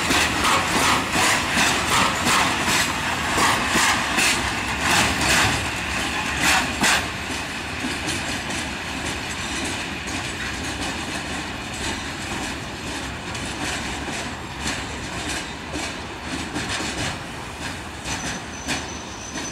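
Freight train of flat wagons rolling past, the wheels clattering over the rail joints in a steady rhythm. The clatter is loudest for the first seven seconds or so, then drops to a quieter, smoother rumble as the wagons move away, with a thin high whine near the end.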